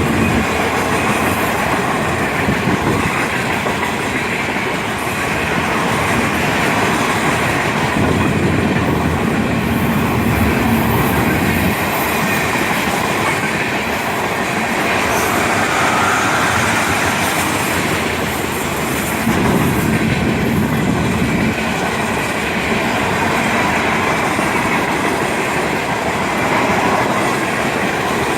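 A Florida East Coast Railway freight train's cars rolling past in a steady stream, their steel wheels clacking over the rail joints and switch, with a faint squeal of wheels around the middle.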